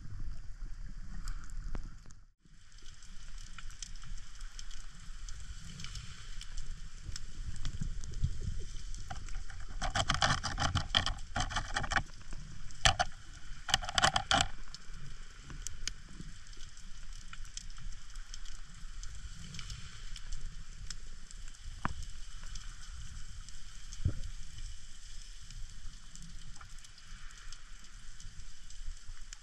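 Underwater ambience heard from a spearfisher's camera: a steady crackle of fine ticks over the low rush of wave surge. The sound drops out briefly about two seconds in, and a cluster of louder clicks and knocks comes about ten to fourteen seconds in.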